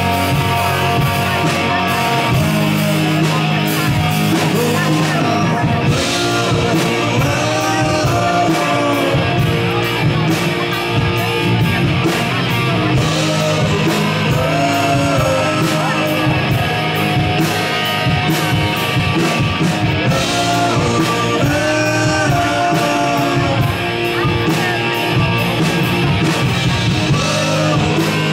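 Live rock band playing a song: guitars and drums keeping a steady beat, with a lead singer's voice over them.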